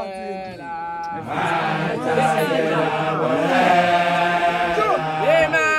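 A man's chanting voice, joined about a second in by a group of voices chanting together over a steady low held tone.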